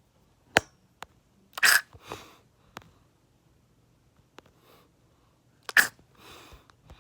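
Two short, sharp explosive bursts of breath from a person, about four seconds apart, with a few faint clicks between them.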